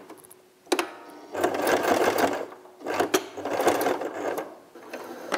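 Electric domestic sewing machine stitching in two short runs with a brief pause between, after a sharp click just under a second in. It is sewing a line of stitches across an elastic ear loop to lock it into a fabric mask.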